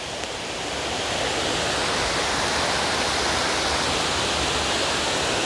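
Water cascading down the stone steps of a stepped dam spillway: a steady rushing that grows louder over the first couple of seconds, then holds even.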